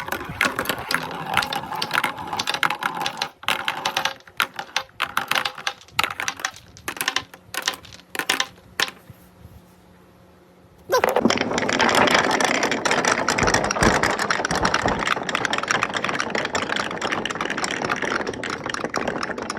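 Marbles rolling and clacking along a wooden marble-run course: many separate sharp clicks at first, a brief lull of about two seconds around the middle, then a dense continuous rattle of many marbles rolling at once.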